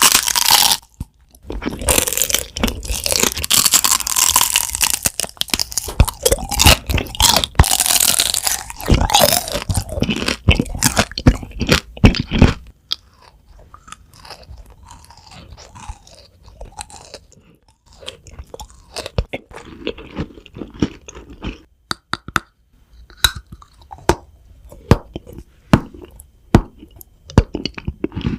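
Close-miked eating: crunchy food being bitten and chewed. There is loud, dense crunching for about the first twelve seconds, then quieter chewing with scattered sharp crackles.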